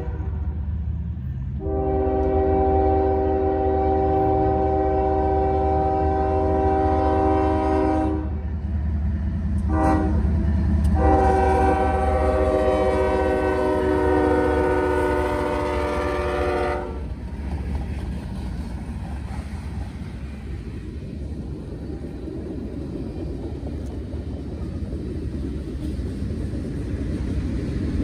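CSX freight locomotive's air horn, several tones sounding at once, blowing the grade-crossing signal: the tail of a long blast, a long blast, a short one and a final long one. After the horn stops, the train's low steady rumble and rolling freight cars carry on, growing louder near the end.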